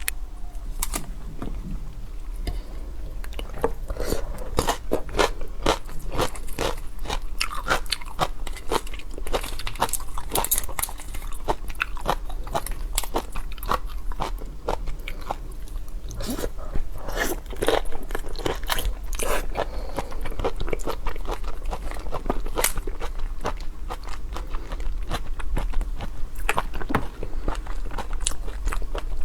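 A person eating seafood close to the microphone: irregular crunching, biting and wet chewing, with many sharp crackles of shell or crisp flesh.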